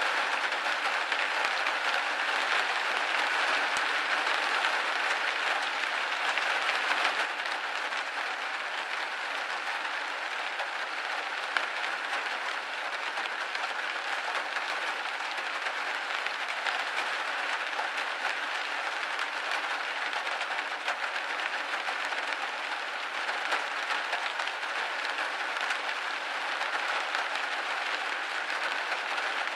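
Rain pattering steadily on a windowpane, a dense even hiss of many small drops, slightly softer after about seven seconds.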